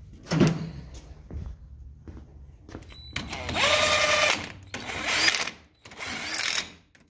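Cordless 20V impact wrench run in three trigger bursts, snugging the bolts of a bolt-on lower shock mount plate; the first and longest lasts about a second with a steady motor whine, the next two are shorter. A single knock of metal comes about half a second in.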